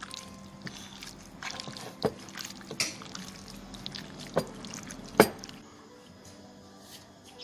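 Wet squelching and smacking of bare hands mixing raw prawns through a thick masala paste in a glass bowl, with a few sharper smacks, the loudest about five seconds in; it goes quieter near the end.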